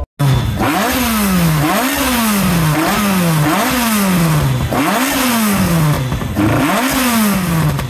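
A classic car's tuned four-cylinder engine, with twin carburettors and a Burton rocker cover, revved repeatedly from the driver's seat. It revs about six times, each blip rising quickly and dying back toward idle over about a second.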